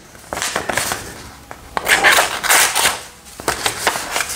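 Dull pocket-knife blade of a Victorinox Explorer Swiss Army knife worked through material in a cutting test, in several rough, noisy strokes with small clicks. The blade tears rather than cuts, the sign of a blunt edge.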